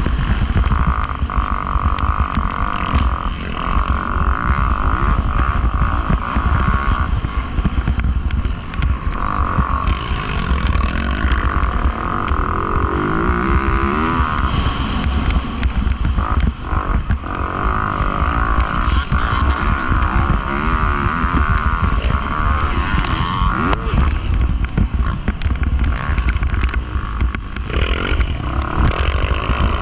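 Dirt bike engine running hard on a motocross track, its pitch rising and falling every few seconds as the throttle is worked, over a heavy low rumble.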